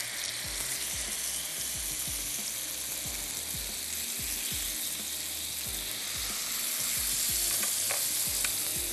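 Chicken pieces and vegetables sizzling steadily on a hot grill pan, with scattered soft low knocks.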